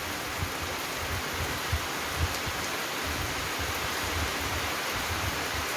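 Heavy tropical-storm rain pouring down in a steady, dense hiss, with wind gusts buffeting the microphone as irregular low rumbles.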